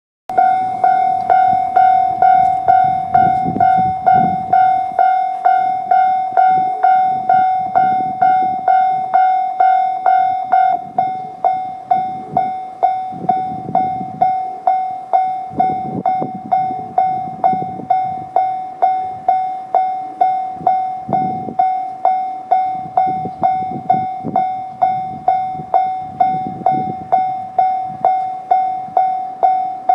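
Japanese level-crossing warning bell ringing, a clear electronic 'kan-kan' tone struck about twice a second. A higher ringing layer fades about eleven seconds in, and a low rumble comes and goes underneath.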